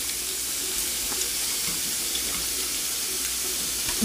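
Pork belly sizzling on a hot grill: a steady hiss with a few faint scattered pops.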